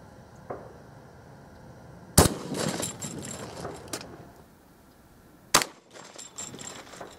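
Shotgun firing a sabot slug: a sharp report with a short echoing tail, then a second, quieter report about three and a half seconds later.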